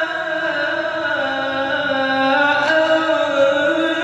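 A male qari's voice in melodic Quran recitation, holding one long, ornamented vowel whose pitch slowly winds up and down without a break.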